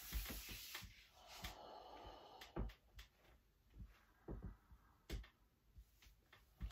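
Quiet movement sounds of a person exercising on a wooden folding stool: a breathy exhale at the start, then a few light knocks and thumps scattered through as limbs and body shift on the stool and floor.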